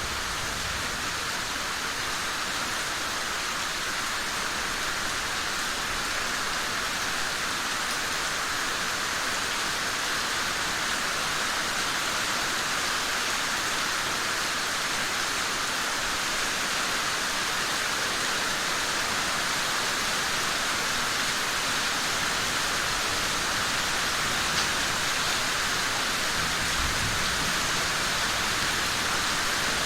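Steady rain falling, an even, unbroken hiss. A faint low rumble comes in briefly near the end.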